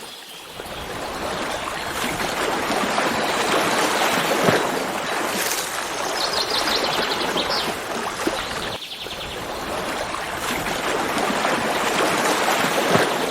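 Stream water running and splashing steadily. About halfway through, a bird gives two rapid trills of quickly repeated high notes.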